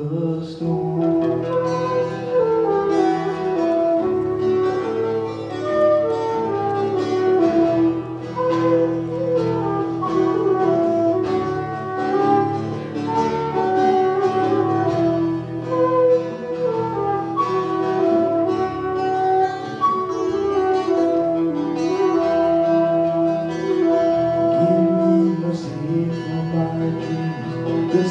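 Instrumental break in an Irish folk tune: a whistle plays a lively melody over congas and guitar accompaniment.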